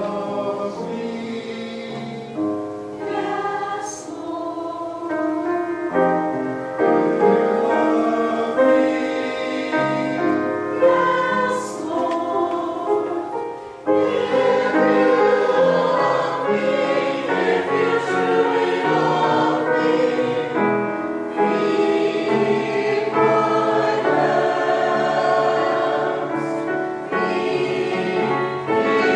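A choir singing, many voices holding sustained chords, louder from about 14 seconds in.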